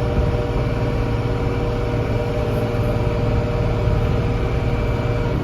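Diesel engine of heavy harvest machinery running steadily, with a steady whine over the low engine hum.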